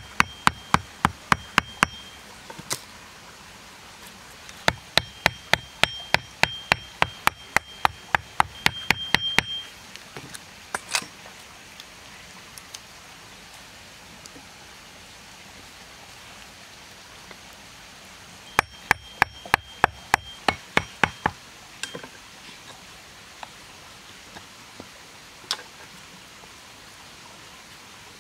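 A metal blade chopping into a short wooden stick in quick strokes, about three to four a second, in three runs with a few single knocks between them, over a steady forest hiss.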